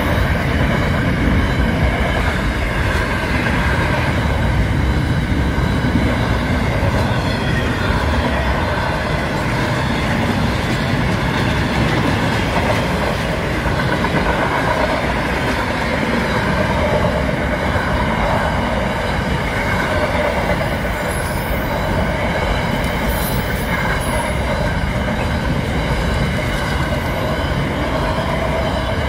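Container wagons of a Pacific National intermodal freight train rolling past at speed: a loud, steady noise of steel wheels running on the rails.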